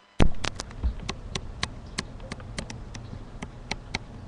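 A run of sharp clicks or taps, about three or four a second and somewhat uneven, over a low rumble.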